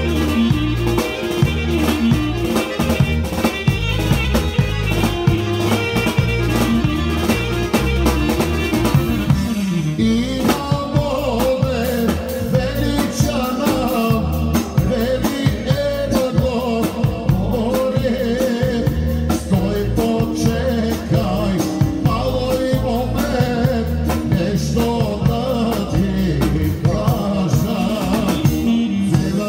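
Live Macedonian folk band music with a steady drum beat. A singer comes in over the instruments about ten seconds in.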